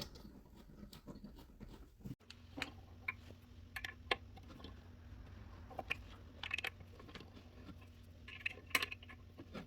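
Hands handling small assembly hardware and wooden parts: scattered light clicks and taps. A faint low hum sets in about two seconds in.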